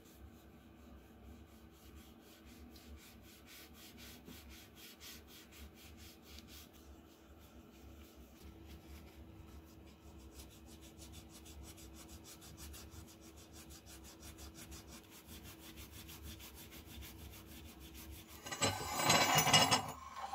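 Cloth rubbing over a black-finished steel axe head, faint, in quick repeated strokes. Near the end, a louder scrape and clatter of metal on stone as the rusty axe is laid on the marble slab.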